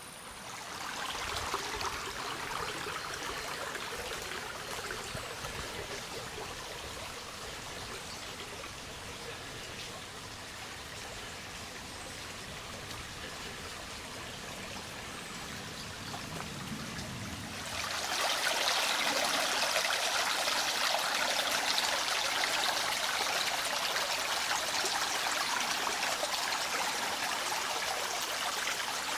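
Small woodland brook, the Kluczwoda stream, trickling and flowing over its shallow bed in a steady rushing wash. It turns abruptly louder and brighter about eighteen seconds in.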